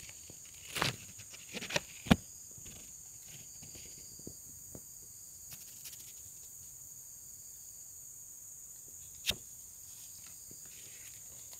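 Steady high-pitched insect calling, with a few sharp knocks or taps, the loudest about two seconds in and another later on.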